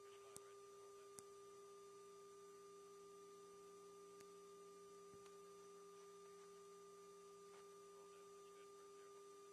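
Near silence: only a faint, steady electrical hum of pure tones, with no speech.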